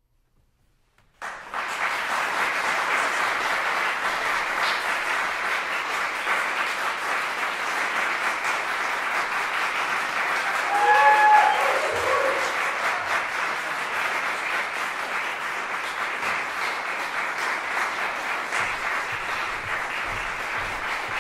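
Concert audience applauding, starting suddenly about a second in and holding steady. About halfway through, one voice calls out briefly above the clapping.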